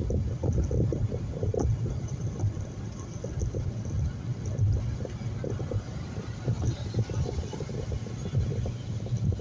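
Road noise inside a moving car: a steady low rumble with many small irregular knocks and bumps.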